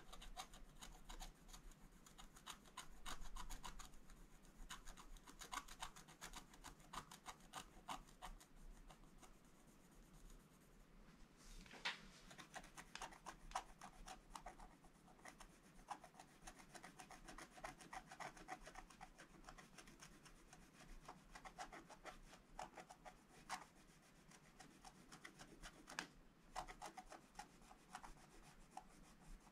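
Wooden scratch-art stylus scraping the black coating off a scratch-art sheet in faint, rapid short strokes that come in runs, with a few sharper single scrapes.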